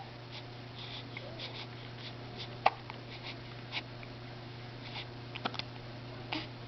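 Hiccups: one sharp hiccup about two and a half seconds in, with fainter short clicks around it, over a steady low hum.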